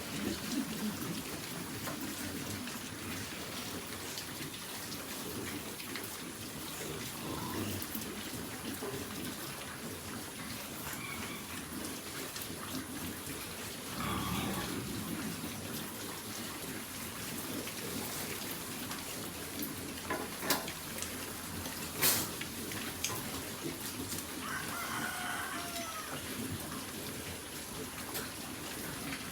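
Steady water-like splashing noise around livestock pens, with a few short animal calls and two sharp knocks about two-thirds of the way through.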